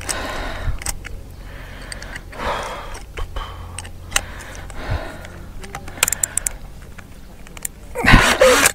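Scattered light clicks and rattles of a power drill being handled without its motor running, as it is readied to drill into a concrete block wall, over a low steady rumble.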